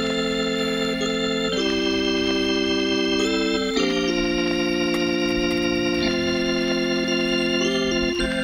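Background music of slow, held organ chords that change about every two seconds, with a higher melody line moving above them.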